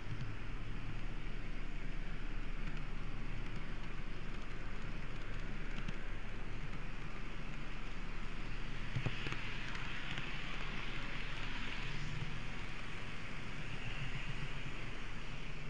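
N-scale model train running around the layout, heard from a camera riding on it: a steady whir with a low hum and a hissing rattle of wheels on rail. The rattle grows louder for a few seconds past the middle, with a single click about nine seconds in.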